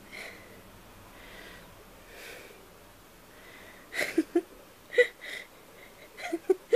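Slow, soft breathing of a dozing old dog, a faint rush about once a second. From about four seconds in, a series of short clicks and brief squeaks, louder than the breathing.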